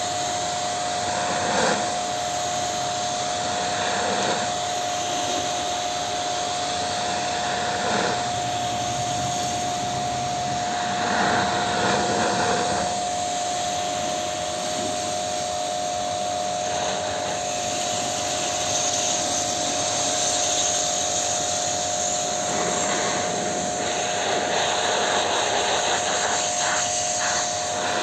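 Pressure washer running with a steady motor whine, its water jet hissing against the copper condenser coil of a split AC outdoor unit during coil cleaning. The hiss swells and eases every few seconds.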